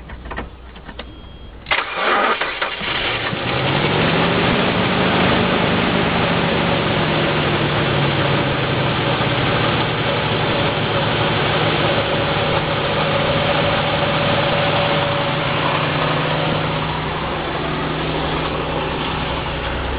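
Nissan VG33E 3.3-litre V6 cranks and catches about two seconds in, then settles into a steady idle. It is the first start after the upper intake plenum was refitted.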